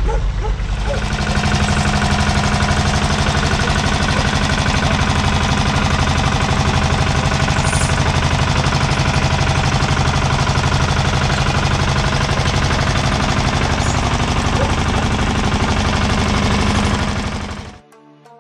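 Tractor engine running steadily at a constant speed, with a rapid even firing beat. It cuts off abruptly near the end.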